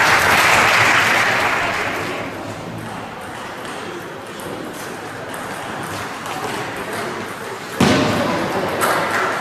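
Table tennis balls ticking off bats and tables in a sports hall, over a loud wash of noise that fades over the first two seconds. About eight seconds in, a sudden loud sound with a voice in it.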